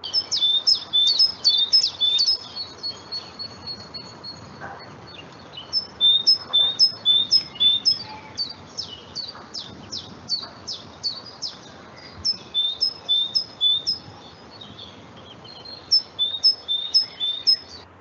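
Recording of a great tit singing: runs of quick, high, sharp notes that sweep down in pitch, repeated several times a second, in bursts with short pauses between, over a faint steady hiss. It cuts off abruptly at the end.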